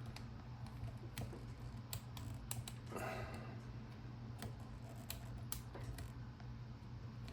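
Number wheels of a Master combination lock clicking irregularly as they are turned one by one under shackle tension, feeling for the gates to decode the combination.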